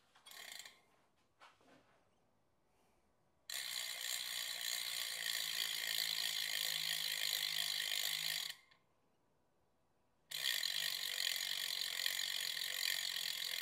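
Bicycle rear-hub freehub ratcheting as the wheel spins freely, its pawls clicking so fast they run together into a steady buzz. It comes in two spells: one of about five seconds beginning about three and a half seconds in, then another near the end after a short silence.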